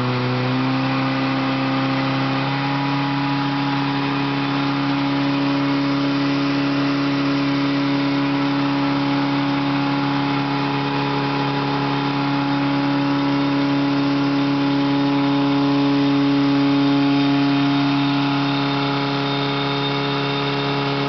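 Engine of a water pump running steadily under load while it drives a long jet of water from a hose; its note rises a little about two seconds in and then holds steady.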